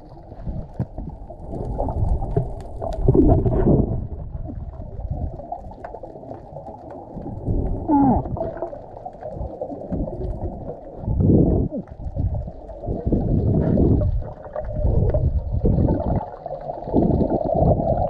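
Muffled underwater rush of water against the camera as a freediver swims, surging every second or two with his strokes and kicks. A short rising squeak comes about eight seconds in.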